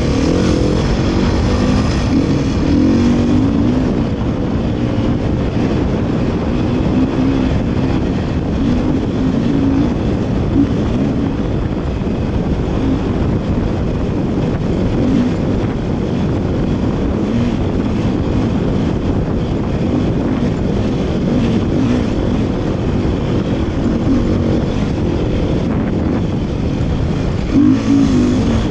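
Dirt bike engine running while the bike rides along a dirt trail, heard from on the bike; its pitch rises and falls with the throttle over a steady low rumble of wind and ground noise.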